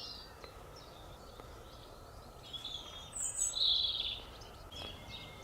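Wild birds chirping and calling a few times, loudest about three to four seconds in, over a low, steady outdoor background noise.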